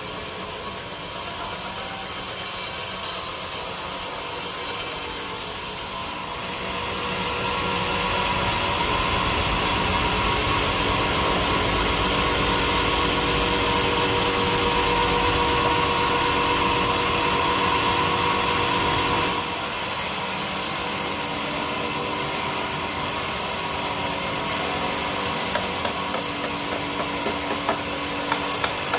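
A power tool running steadily on wood, with a hissing top that cuts off about six seconds in and comes back after about nineteen seconds.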